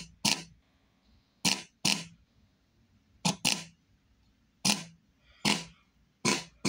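Desktop subwoofer with its cone exposed playing a bass-boosted track as short, harsh bass hits, several pairs a second or so apart, with near silence between them.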